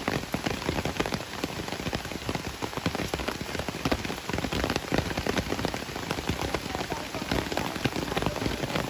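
Steady rain falling on leaves and undergrowth, with dense, irregular taps of individual drops.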